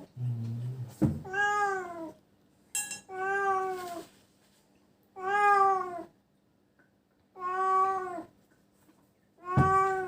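A domestic cat meowing over and over, five long meows about two seconds apart, each rising and then falling in pitch. A short knock comes about a second in.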